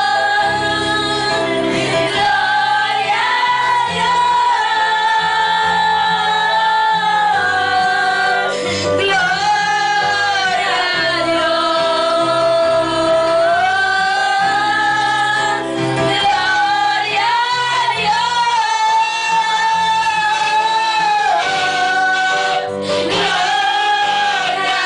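Worship music: a voice singing a slow, drawn-out melody over instrumental accompaniment with steady low bass notes.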